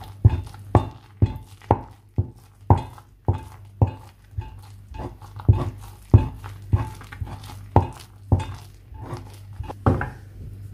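Wooden spoon knocking and scraping against a non-stick saucepan as a stiff flour dough for ga'at is stirred and mashed, about two knocks a second.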